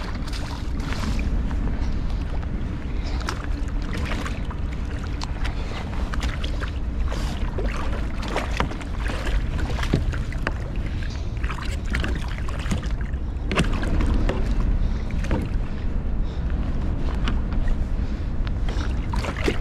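Striped bass splashing at the surface beside a kayak while it is fought in and handled: many short splashes and knocks over a steady low rumble.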